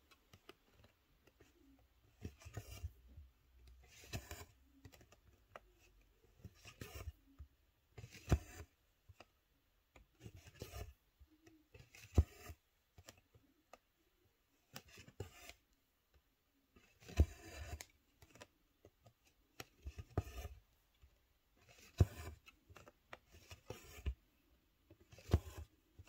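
Cross-stitch needle and three-strand floss pulled through 11-count stamped cross-stitch fabric, one stitch after another: faint scratchy rasps about every second and a half, some with a sharp tick, with a short pause near the middle.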